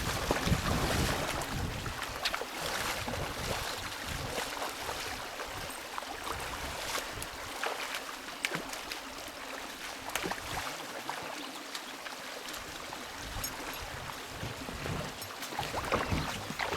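Rushing floodwater of a river, a steady hiss of flowing water broken by many small splashes.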